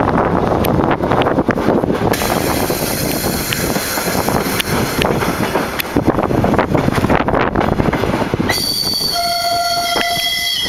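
Diesel passenger train running, heard from inside a carriage: a steady rumble and rush with clicks of wheels over the rail joints. A train horn sounds for about two seconds near the end.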